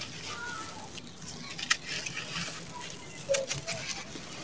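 Dry sand-cement blocks crushed and crumbled by hand: a steady gritty crunching and trickle of falling grains, with a few crisp cracks about a second and a half in and again near three seconds in.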